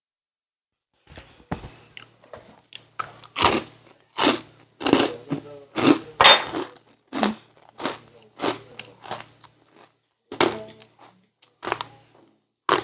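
A person chewing and crunching food close to the microphone, in a fast, irregular run of crunches and mouth sounds that starts about a second in.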